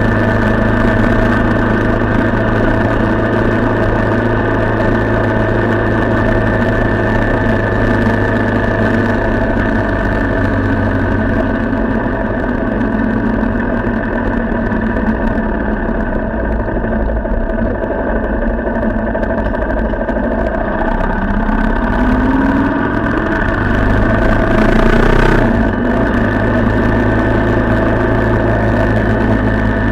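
A vehicle engine running steadily. About three-quarters of the way through, a tone rises for a few seconds, then breaks off suddenly.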